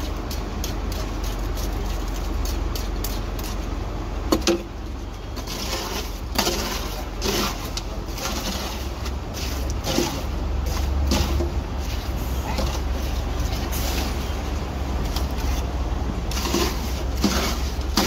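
Scattered scrapes and knocks of hand tools working wet concrete in a steel wheelbarrow, over a steady low rumble.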